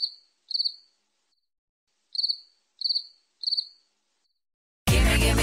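Cricket chirping sound effect used as the comic 'crickets' gag for awkward silence where no applause comes. Short chirps come in two clusters of about three, each chirp about a third of a second long. Loud pop music cuts in abruptly near the end.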